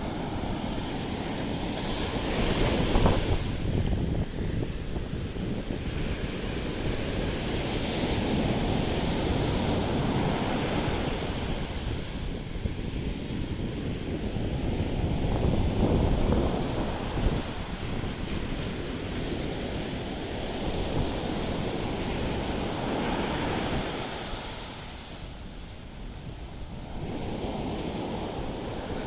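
Sea waves breaking and washing up the beach, swelling and easing every several seconds, with wind on the microphone.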